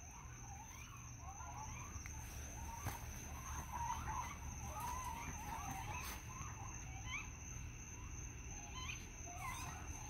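Faint, wavering chittering and trilling calls from several animals at once, rising and falling in pitch in scattered bouts, with a few quick upward squeals near the end; the listener takes them for young raccoons calling around him.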